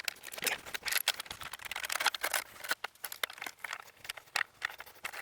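Roller chain clicking and rattling as it is threaded by hand around the log stop's drive sprocket: a run of quick, irregular clicks and taps.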